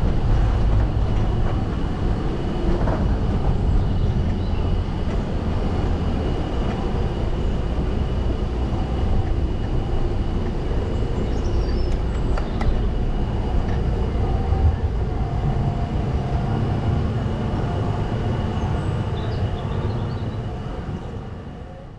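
Wiegand bobkart rolling along its track on an onboard ride: a steady heavy rumble of the wheels on the rails, with a faint high whine, fading away near the end.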